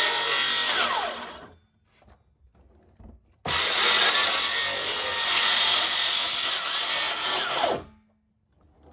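Makita 18V cordless circular saw cutting through a plastic 55-gallon drum, a loud, dense whine of blade through plastic. It stops about a second and a half in, starts again abruptly about three and a half seconds in, and winds down near the end.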